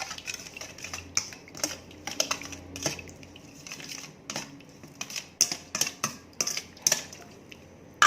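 A metal utensil clicking and tapping against a pot or bowl in quick, irregular strokes, a few a second, as minced pork is stirred. It ends in one loud ringing clang.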